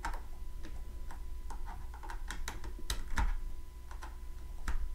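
Light, irregular clicks and taps of a USB 3.0 cable plug knocking against the plastic casing and port of a portable hard drive as the connector is lined up.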